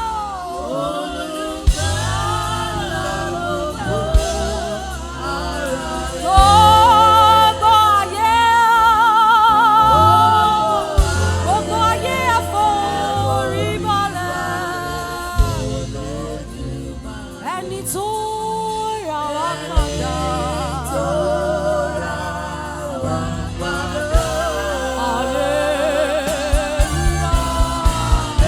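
Gospel worship singing in Yoruba: a lead voice with strong vibrato, with other voices, over steady sustained low instrumental chords.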